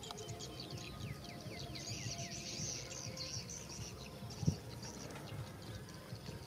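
Small birds chirping over a steady high chirring, with a run of quick falling chirps about a second and a half in. Underneath, a dog eats from a plastic plate with irregular low chewing and nosing sounds, and a single thump about four and a half seconds in.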